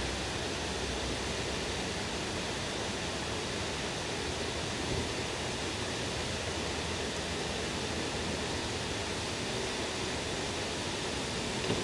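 Steady rush of water pouring down a reservoir dam's stepped stone spillway.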